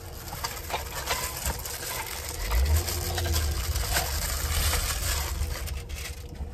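Rustling and crinkling of packaging as items are handled inside a cardboard box. A low car rumble joins in about two seconds in.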